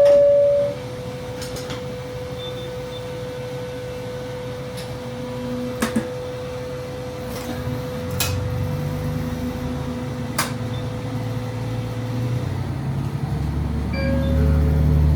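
Diesel train's engine running low, then throttling up in two steps, about eight seconds in and again near the end, as the train gets under way. A chime note ends at the very start, a steady thin tone runs until about twelve seconds in, and a few sharp clicks sound in the middle.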